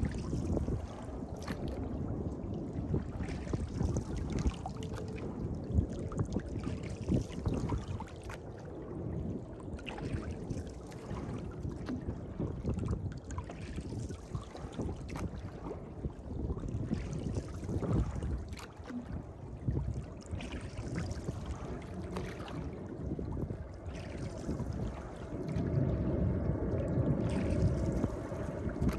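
Wooden rowboat under oars: water rushing along the hull as the blades pull, with repeated knocks of the oars working in their oarlocks.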